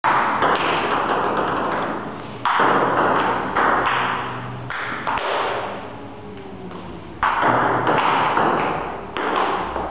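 Table-tennis rally: a plastic ping-pong ball clicking off paddles and bouncing on the table, hits coming irregularly, roughly one every half second to second, with a slight pause in the middle, each followed by room echo.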